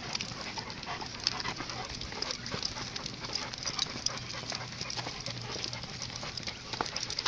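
Cane Corso dogs panting as they walk on leash over asphalt, with irregular light clicks of footsteps and a collar chain.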